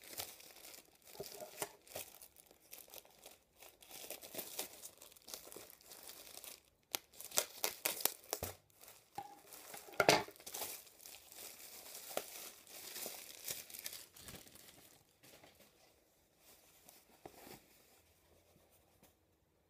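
Thin clear plastic garment bag crinkling and rustling as it is opened and a pair of jean shorts is pulled out, in irregular crackles that are loudest about halfway through and fade near the end.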